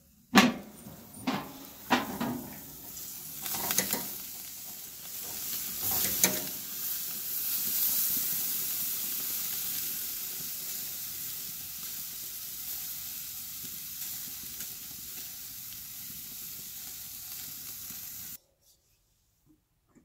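Pork tenderloin sizzling on a gas grill, a steady high hiss that cuts off suddenly near the end. In the first few seconds several sharp clanks and knocks of metal on the grill are heard.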